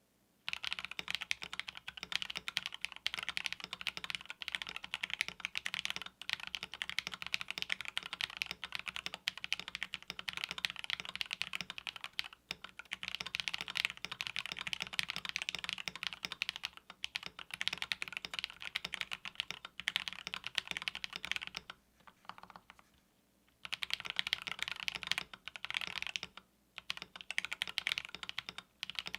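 Fast continuous typing on a KBD67 Lite R2 65% custom mechanical keyboard fitted with Gateron Yellow linear switches, giving a dense patter of key presses with a few short pauses, the longest about two-thirds of the way through.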